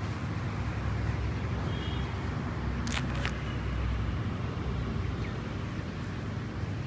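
Steady outdoor background rumble with no clear single source, broken by two sharp clicks in quick succession about three seconds in.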